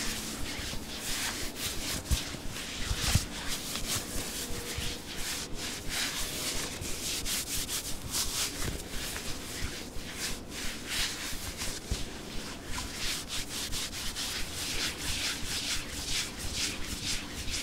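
Satin-gloved fingers rubbing and brushing over a camera lens: an unbroken run of soft, hissy swishing strokes, several a second, uneven in rhythm.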